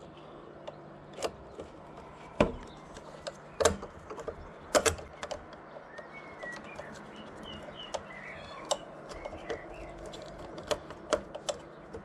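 Irregular small clicks and knocks of hands fitting and starting a screw into a metal accessory bracket under a motorcycle's instrument panel, with faint bird chirps in the background.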